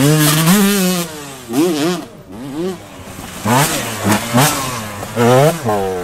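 Enduro dirt bike engine revving up and down in repeated bursts as the throttle is opened and shut. Loud rev peaks come at the start, again about halfway, and near the end.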